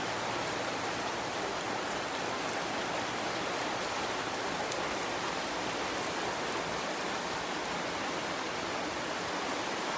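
Steady, continuous rain falling, an even hiss without let-up.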